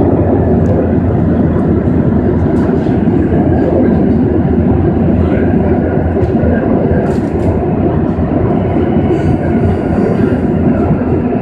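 Madrid Metro Line 4 train running through a tunnel: a loud, steady rumble of wheels on rail, with occasional sharp clicks.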